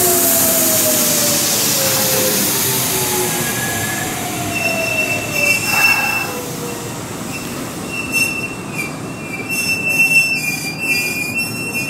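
Kintetsu electric commuter train braking: the motor whine falls steadily in pitch, then a high, steady squeal of wheels and brakes sets in as a train draws to a stop at the platform. The squeal is loudest about six and ten seconds in.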